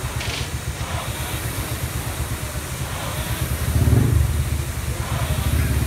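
Motorcycle and truck engines idling in street traffic, a steady rapid low throb that swells louder about four seconds in as an engine is revved.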